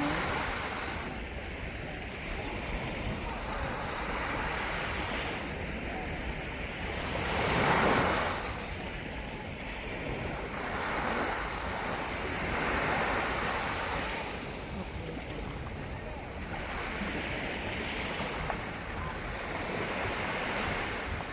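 Sea waves breaking and washing up on a beach, swelling and fading every few seconds, with the biggest wave about eight seconds in. Wind rumbles on the microphone underneath.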